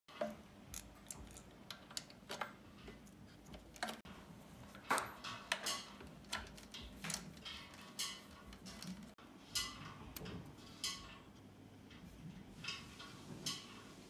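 Irregular clicks, taps and light clatter of a brake hose and brake caliper being handled and fitted against a mountain bike frame, a few of the taps ringing briefly.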